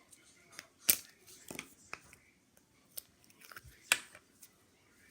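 Hands playing with slime, making a scattering of sharp clicks and pops. The loudest come about a second in and near four seconds in.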